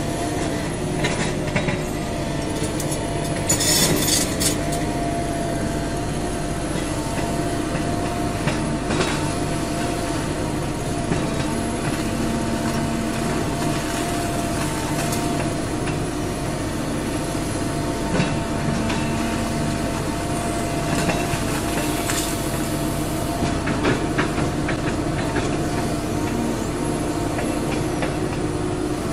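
Excavator's diesel engine running steadily, with scattered metallic clanks and knocks and a brief high squeal about four seconds in.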